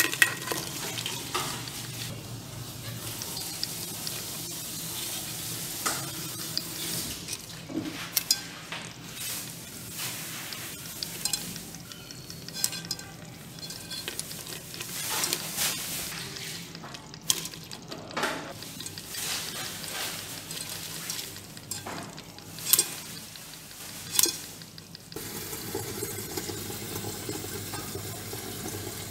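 Live crabs scrabbling and clicking in a pot as they are prodded with a knife and a metal tool, with several sharp knocks near the end of the stretch. About 25 seconds in, this gives way to tap water running steadily into an electric kettle.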